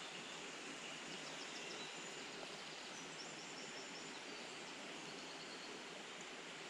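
Steady rush of flowing river water, with a few faint, high chirping bird calls.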